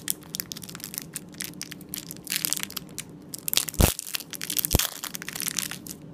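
Crinkly plastic wrapper on a block of red polymer clay being pulled and torn open, a constant crackle of rustling. Two louder thumps come about four and five seconds in.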